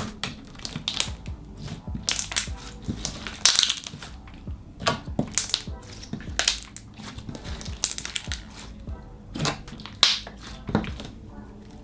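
Glossy slime being squished, folded and pressed by hand, giving irregular sticky pops and crackles, several a second.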